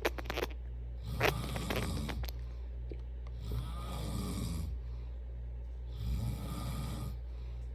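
A sleeper snoring, three snores about two and a half seconds apart, the first two with a rattling, clicking edge. A steady low hum runs underneath.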